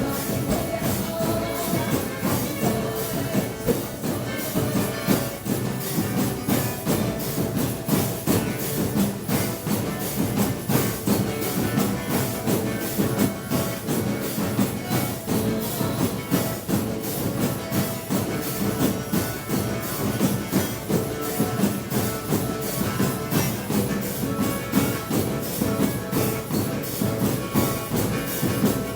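Drum kit played along to a gospel worship song during an instrumental passage: a busy, steady beat with bright cymbal or jingle strokes over the backing instruments.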